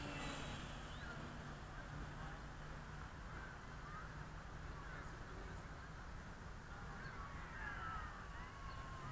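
Birds calling: scattered short calls, with a run of falling calls near the end, over steady wind noise. At the start the electric motor and propeller of a Dynam Cessna model plane whir briefly as it passes close, then fade to a faint hum.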